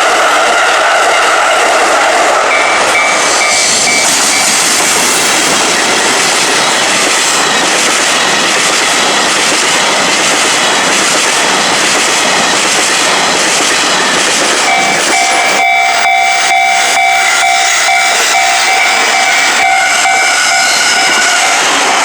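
Train passing at a level crossing: a loud, steady rush of wheels on rails, with a run of wheel clacks from about 15 seconds in and a steady high tone sounding twice over it.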